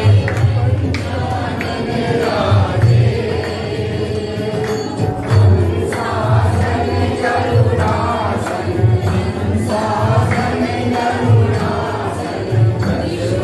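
A group of worshippers singing a Hindu aarti hymn together over a regular percussive beat.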